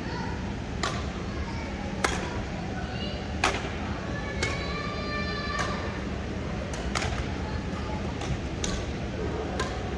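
Badminton rackets hitting a shuttlecock in a rally: sharp clicks a second or more apart, with fainter hits near the end. About halfway through comes a steady, high squeak lasting about a second, like a shoe on the sports-hall floor.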